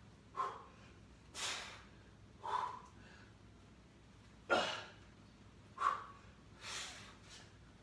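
A man's forceful breathing while he presses a heavy kettlebell overhead: about six short, sharp breaths in and out through the nose and mouth, roughly one a second.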